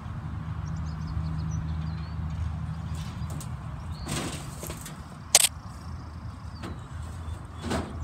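A low steady hum of a distant motor that fades out about five seconds in, with a single sharp click a little after and faint bird chirps.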